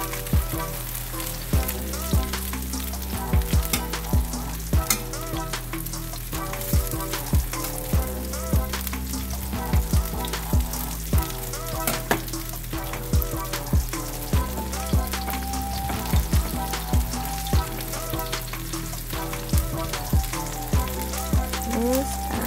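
Tempeh slices sizzling as they fry in hot oil in a stainless steel pan. Background music with a steady beat plays over it.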